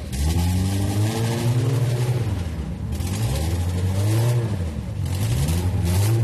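Off-road 4x4's engine revving up and down several times as it is stuck in deep mud, its tyres spinning in the mud.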